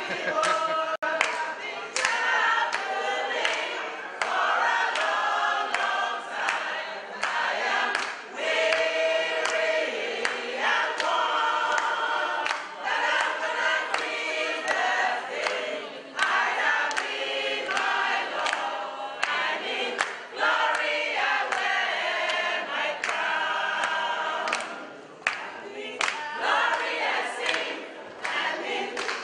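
A group of women singing together in chorus, with a steady sharp beat running under the voices.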